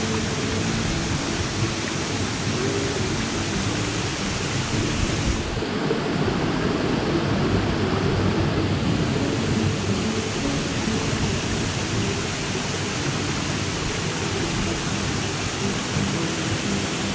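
Waterfall pouring over a rock ledge into a rocky creek: a steady rushing of falling and running water.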